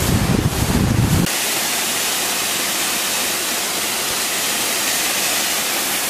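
Wind buffeting the microphone for about the first second. Then an abrupt switch to the steady rushing hiss of a waterfall pouring onto rock.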